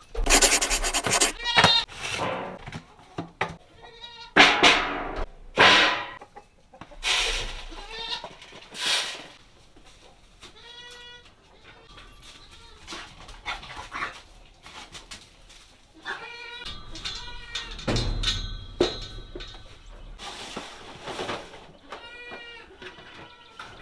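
Baby goats bleating again and again, hungry at feeding time, with several louder, harsher cries in the first half.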